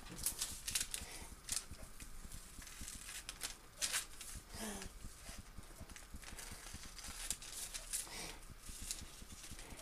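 Kitchen scissors snipping into a sheet of greaseproof paper, with the paper rustling and crinkling as it is turned; an irregular scatter of short snips and crackles.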